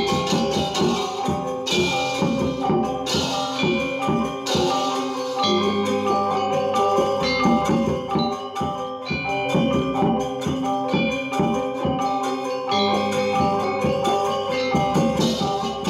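Balinese gong kebyar gamelan playing a tabuh: bronze metallophones and gongs ring in quick, dense interlocking strikes. A deep held tone sounds beneath them from about a third of the way in until roughly three quarters through.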